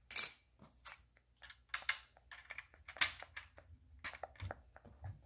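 LEGO bricks being handled and pressed together: a string of small, irregular plastic clicks and clatters, a few of them sharper than the rest.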